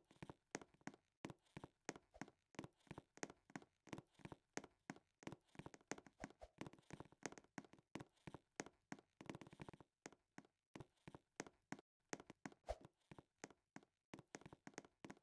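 Quiet, irregular clicks and taps, several a second.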